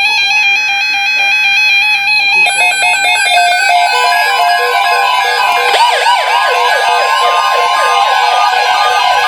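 Several NOAA weather radio receivers sounding their alert tones together for a severe thunderstorm watch: layered steady electronic tones, joined about two and a half seconds in by rapid repeating beeps, and by warbling, siren-like glides a few seconds later.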